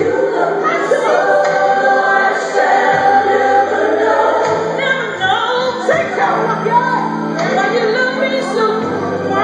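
Recorded gospel music: a choir singing over instrumental backing.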